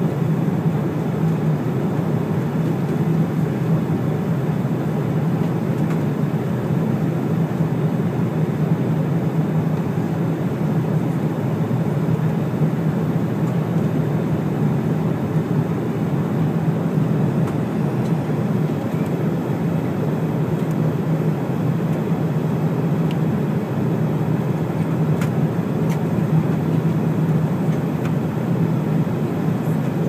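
Jet airliner cabin noise at cruising altitude: a steady, even rush of engine and airflow noise, heaviest in the low range.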